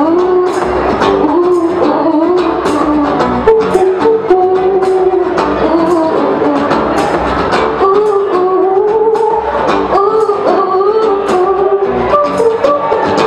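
A woman singing a country song live into a microphone, backed by acoustic guitar and a steady percussion beat.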